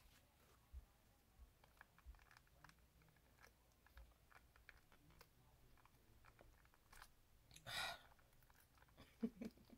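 Faint clicks and rustles of long acrylic nails working at a small foil packet, struggling to get it open. A brief, louder crinkling rustle comes about eight seconds in.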